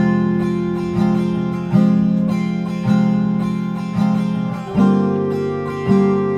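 Background music: strummed, sustained chords on a stringed instrument, a fresh strum about once a second, moving to a new chord near the end.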